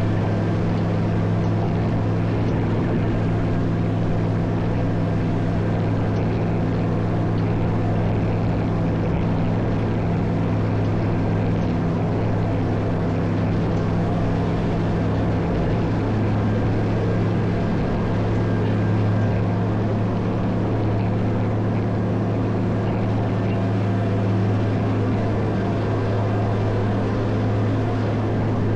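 Caterpillar 140M motor grader's diesel engine running steadily under load while plowing snow, a constant low drone with no break.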